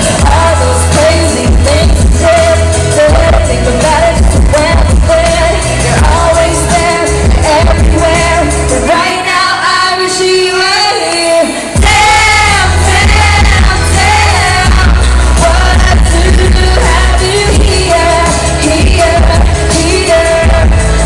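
Pop song performed live with singing over loud amplified accompaniment. The bass drops out for about three seconds in the middle, leaving the voice and higher parts, then comes back in.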